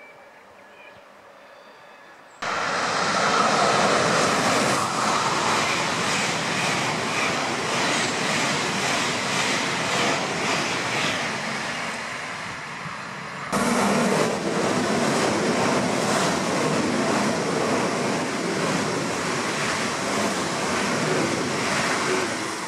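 Trains passing through a station: a loud, steady rush of rail and wheel noise that starts abruptly about two seconds in. About halfway through it jumps louder as a white ICE high-speed train rushes past close by.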